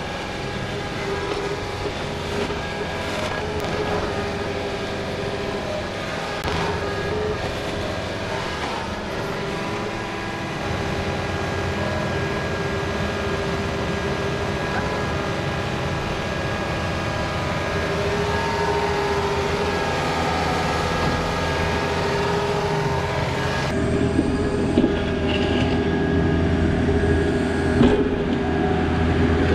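Mini excavator's diesel engine running steadily with a steady whine, and a few sharp knocks in the first ten seconds. The engine note grows heavier about a third of the way in and gets a little louder toward the end.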